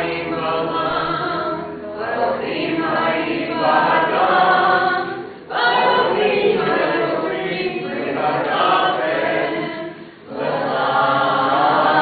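Group of people singing together, unaccompanied, in three phrases with short breaks about five and a half and ten seconds in.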